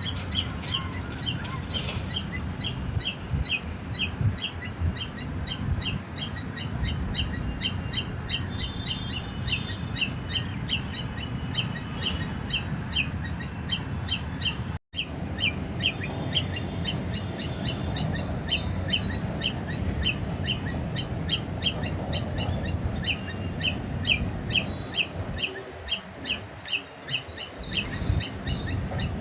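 Squirrel chirping its alarm call: short, high chirps repeated evenly at about three a second, on and on.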